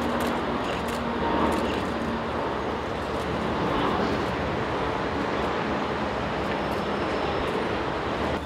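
Airbus A380-841's four Rolls-Royce Trent 900 turbofans at climb power just after takeoff: a steady jet roar.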